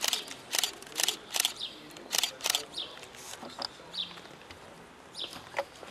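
Footsteps of a small group walking on hard paving: sharp steps about two a second for the first two and a half seconds, then fading. Brief high chirps of small birds come later.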